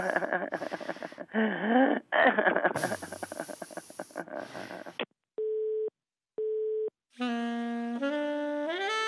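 A few seconds of jumbled, noisy sound with short chirps, then two short beeps of a telephone busy signal about a second apart, as on a line that has just been hung up. After that a saxophone jingle starts, its notes climbing in steps.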